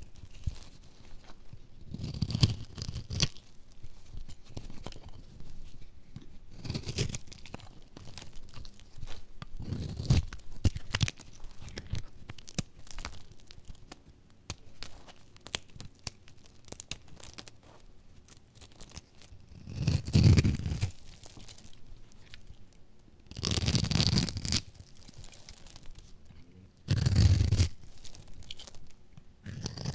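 Crunchy dry bar soap being cut into cubes with a blade and crumbled by hand: a series of crunching, cracking bursts a few seconds apart, with fainter scraping and rustling of soap flakes in between.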